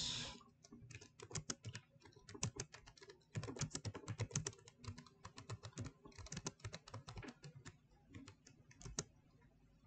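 Typing on a computer keyboard: quick, irregular keystrokes in short runs, thinning out near the end.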